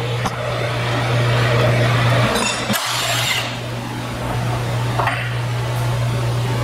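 Steady low machinery hum in a workshop, broken about two and a half seconds in by a short burst of noise lasting about a second, with a smaller short sound near the end.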